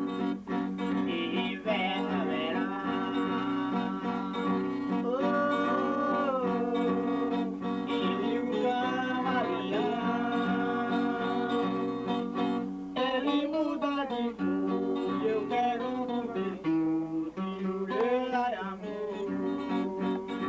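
A man singing, with long held and sliding notes, while strumming chords on an acoustic guitar.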